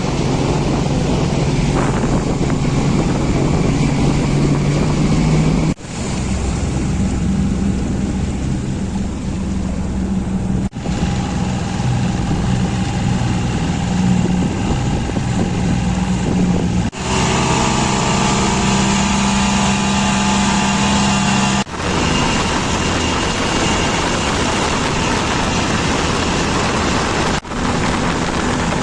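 A boat engine running steadily under wind and water noise, in several stretches joined by abrupt cuts, the engine's pitch a little different in each.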